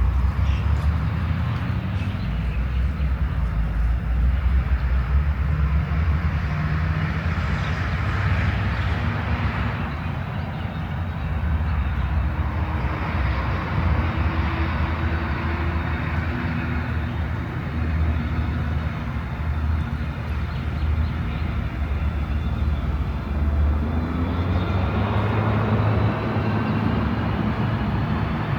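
Engine noise: a steady low rumble with faint tones that drift slowly in pitch.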